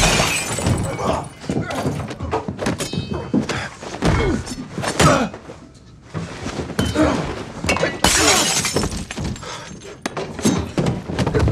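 Film fight sound effects: a run of hard blows and thuds, with glass smashing at the start and again about eight seconds in, and men's grunts and gasps between the hits.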